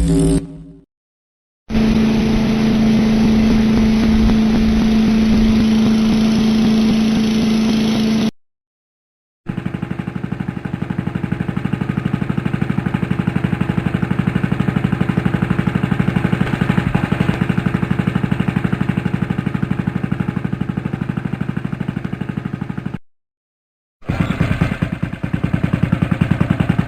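Three separate engine sound-effect recordings, each cut off by a second of silence. First an engine running at a steady speed with a strong even hum. Then a longer stretch of an engine running steadily with fast, regular firing pulses, and a third engine starting near the end.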